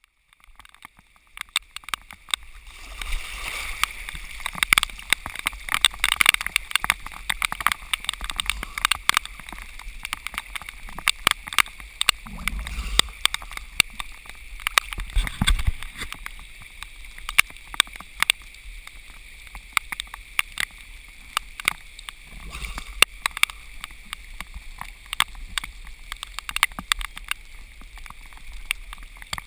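Rain falling on lake water and striking the camera close up, heard as dense irregular sharp ticks over a steady hiss. Water sloshes and gurgles at the surface beneath, swelling briefly a few times.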